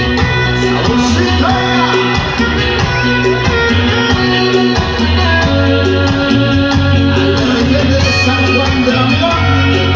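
A live band playing loud through the PA, with a heavy bass line changing notes every second or so, and singing over it.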